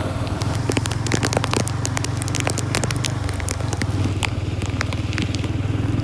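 Motorcycle engine running steadily while riding a wet, rough dirt track, with many sharp crackling clicks over it, thickest in the first half.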